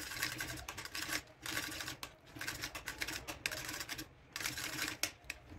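Utensil stirring thick vegetable bhaji in a hammered stainless-steel pan, with quick irregular clicks and scrapes against the pan's metal sides.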